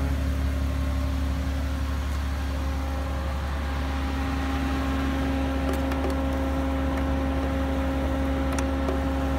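Mercedes-AMG G65's twin-turbo V12 idling: a steady low hum with a few even tones over it. One tone steps slightly higher about three and a half seconds in.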